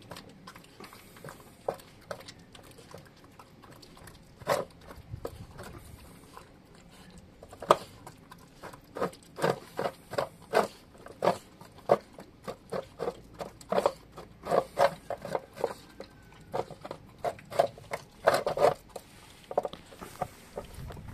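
German shepherd puppy eating, with a run of quick chomping and crunching bites. The bites are scattered at first and then come fast, two or three a second, from about eight seconds in.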